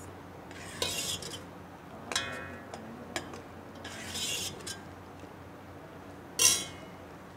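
Metal ladle stirring soup in a stainless steel pot, scraping and clinking against the pot four times about two seconds apart; one clink rings briefly, and the loudest scrape comes near the end.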